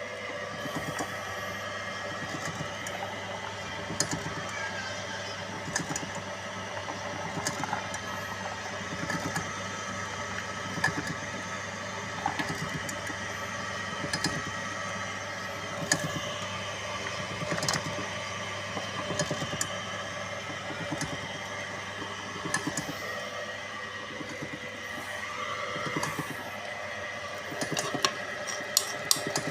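Livestock feed pellet machine running steadily, with several held tones over a fast low pulse and sharp clicks every second or two.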